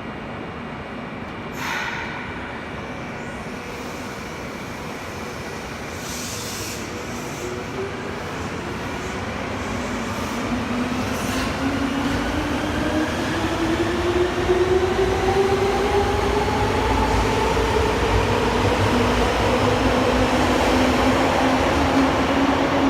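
Subway train pulling away, its electric traction motors whining in several tones that rise steadily in pitch as it gathers speed, louder over the rail noise. A few sharp knocks come in the first seconds.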